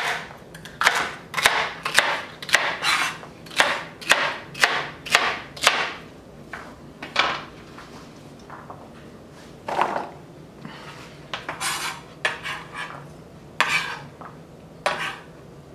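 Chef's knife chopping celery on a plastic cutting board: a quick run of sharp chops, two to three a second, for the first six seconds, then fewer, scattered knocks of the blade on the board.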